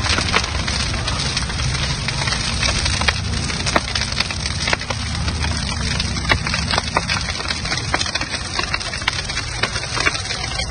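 Large fire of burning car tyres crackling, with many sharp pops and snaps over a steady low rumble.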